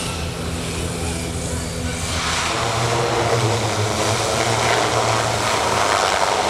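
PT6 turboprop engine and propeller of a turbine-converted PZL-104 Wilga aircraft, with a steady low tone, then growing louder from about two seconds in.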